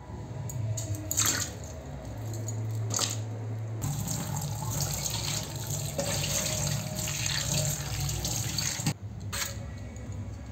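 Tap water pouring into a steel bowl over raw green bananas being washed by hand. It comes on about four seconds in and stops about nine seconds in, after a couple of sharp knocks.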